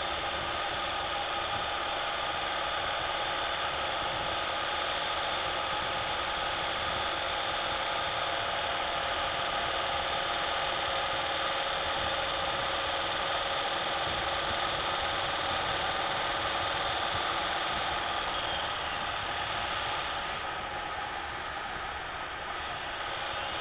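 Cabin noise of a Citroën Nemo's 1.3 Multijet four-cylinder turbodiesel and tyres, cruising steadily at motorway speed in fifth gear. The sound eases slightly near the end as the throttle is lifted.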